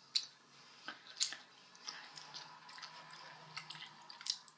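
Mouths chewing candy: soft wet smacks and clicks, a few scattered sharp ones, over a faint steady hum.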